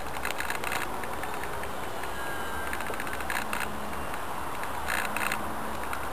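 Faint drone of a radio-controlled model T-28 aircraft flying overhead, under a steady rushing noise with a few short crackles about halfway through and near the end.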